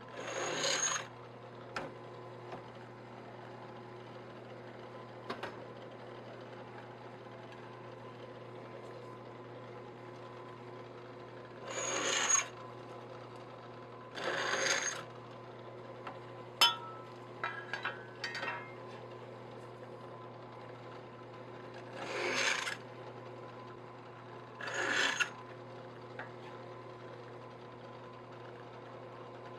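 Drill press motor running with a steady hum while its bit cuts through an aluminium channel column, giving five short rasping cutting bursts about a second each at uneven intervals. A sharp click and a few lighter clicks of metal come midway.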